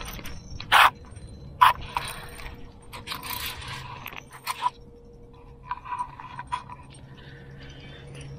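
Shimano Twin Power C3000XG spinning reel working under the pull of a hooked bluefish, its mechanism whirring and clicking, with sharp clacks about one and two seconds in.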